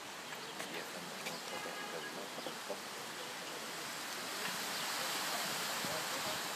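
Steady hiss of outdoor background noise that swells slightly in the second half, with a few faint ticks.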